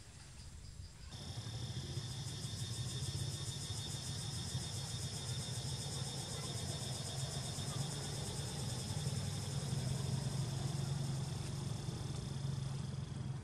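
Insects buzzing steadily in the trees, several high pulsing tones together, over a low steady engine rumble of road traffic; both begin about a second in.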